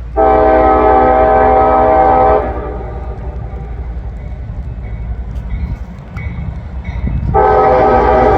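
CSX GE ES40DC locomotive's five-chime K5HLA air horn sounding for a grade crossing: one long blast of about two seconds, then a second long blast starting near the end, over the low rumble of the train.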